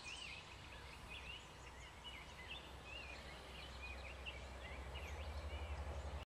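Songbirds chirping and singing in spring woodland: many short, quick rising and falling calls. Under them is a low rumble on the microphone that grows and flutters near the end, and all sound cuts off abruptly just before the end.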